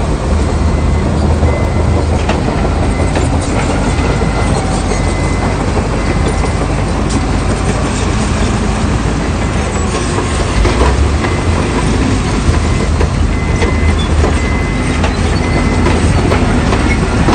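Crawler bulldozer working: steady diesel engine drone with scattered metallic clanks and the clatter of its steel tracks.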